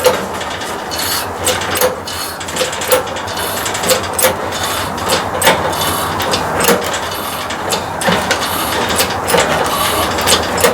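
Hand-operated press tool being worked to push a new front hub into the wheel bearing: a steady rhythm of clicks and scraping metal strokes, about two a second.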